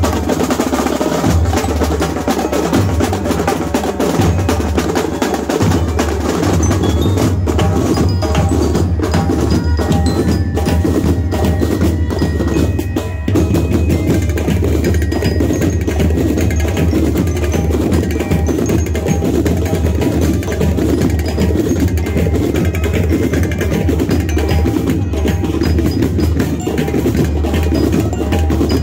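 School marching band playing: massed snare and bass drums beating a steady march rhythm, with bell lyres ringing a bright melody over it.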